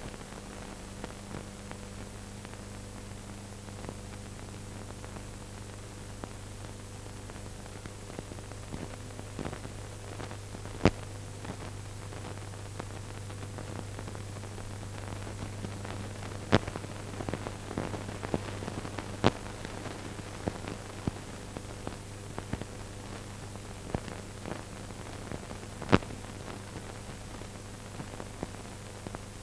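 Steady hiss and low hum of an old film soundtrack with no speech. A few sharp clicks and pops are scattered through it, with a cluster of small crackles around the middle.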